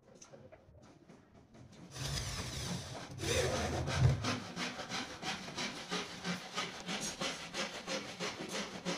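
Cordless drill driving a screw through a drawer channel into a wooden cabinet side: the motor runs for about two seconds and stops on a loud peak as the screw seats. After that comes a steady rhythmic scraping, about four strokes a second.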